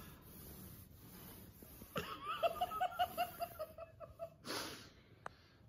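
A person laughing in a quick run of high-pitched, breathy pulses about two seconds in, followed by a short rushing breath.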